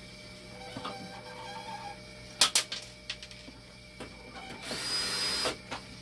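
Hemodialysis machine running under test, its mechanism clicking, with a sharp double click about two and a half seconds in and a hiss of just under a second near the end, over a steady hum.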